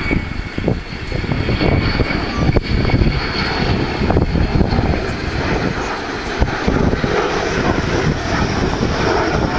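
Avro Vulcan XH558's four Olympus turbojets on a low pass: a loud, steady, rough jet rumble.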